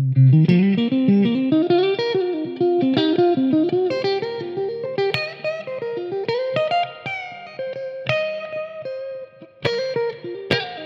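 1990s Japanese-made Squier electric guitar played clean through a Marshall AVT Tribute amp, on the neck-and-middle pickup combination. It plays single-note melodic lines with bends, broken by a few sharp strums.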